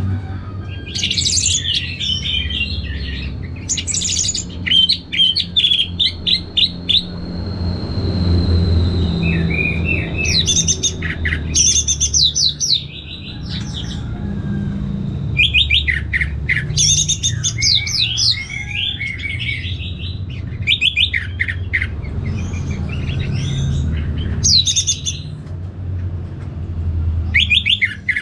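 Orange-headed thrush singing: phrase after phrase of quick, varied chattering and whistled notes, each lasting a second or two with short pauses between, over a low rumble.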